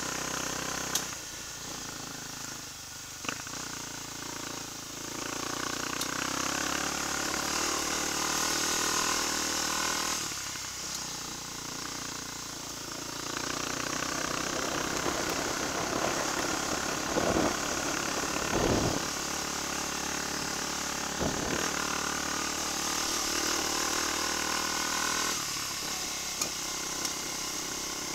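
Trail motorcycle engine running at low speed on a rough dirt track, its note rising and falling with the throttle, with a few short knocks and bursts of rushing noise.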